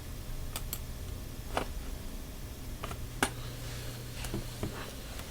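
Scattered light clicks and taps, about six in five seconds, over a steady low hum.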